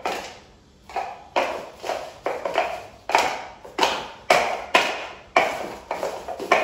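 Plastic cups knocking an ice cube back and forth across a plastic bin bag: a quick, uneven run of sharp taps and clacks, about two or three a second, each one dying away fast.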